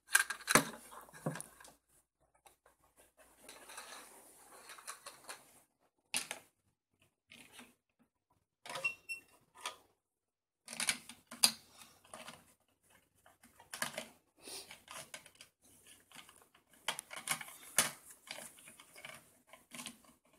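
Plastic play-kitchen toys being handled by small hands: irregular clicks, taps and clatter of hard plastic pieces, coming in bursts with short pauses between them.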